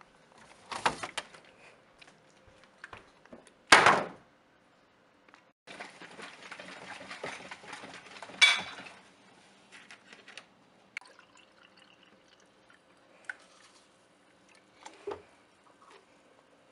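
Kitchen handling sounds: knocks, the loudest a thud about four seconds in, then liquid pouring from a plastic jug for about three seconds, followed by scattered light clicks and taps.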